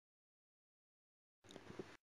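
Near silence: a dead-silent gap, with a faint brief rustle near the end.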